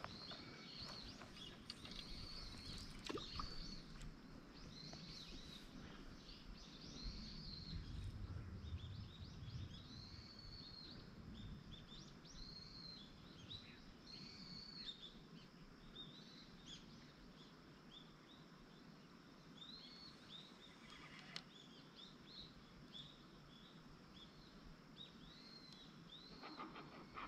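Faint bird calls, short arched chirps repeated many times over a quiet background, with one sharp click about two-thirds of the way through.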